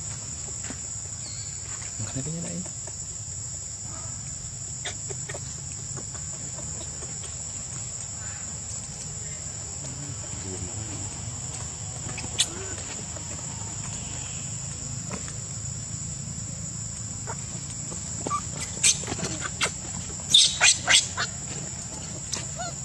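Steady high-pitched drone of insects over a low background hum. A sharp click sounds about twelve seconds in, and a quick run of loud sharp clicks comes near the end.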